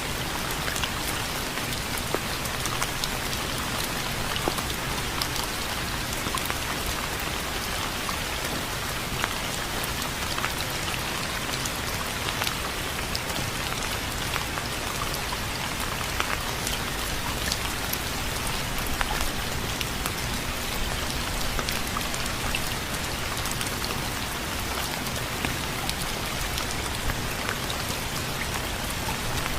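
Steady rain falling, a constant hiss dotted with many sharp drop hits on a surface.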